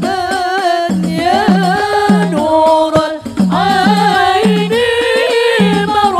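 Women singing a sholawat, an Arabic devotional song in praise of the Prophet, through microphones and a PA. A lead voice is joined by a second voice, over a drum beat of about two strokes a second.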